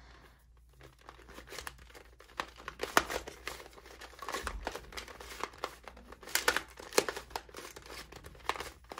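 Penguin-shaped 2x2 plastic puzzle cube being turned quickly by hand in a speedsolve: a stream of irregular plastic clicks and clacks as its layers turn and snap into place.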